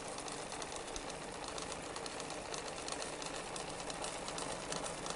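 Sewing machine running steadily, its needle stitching in a rapid, even run of ticks.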